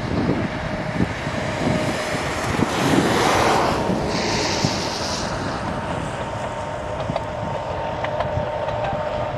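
Narrow-gauge train hauled by a diesel locomotive running past, its engine a steady hum under heavy wind buffeting on the microphone. A hissing gust swells briefly about three to five seconds in.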